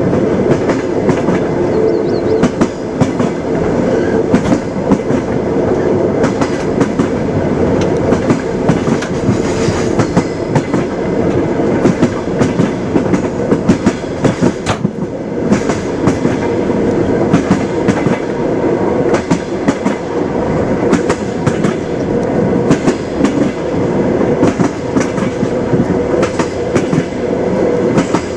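Train running along the track: a steady rumble with repeated clacking of the wheels over the rail joints.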